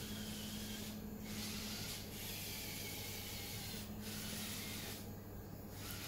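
Small electric gear motors of a remote-controlled wheeled robot whirring as it drives over a tiled floor, over a low steady hum. The whir cuts out briefly a few times as the motors stop and start.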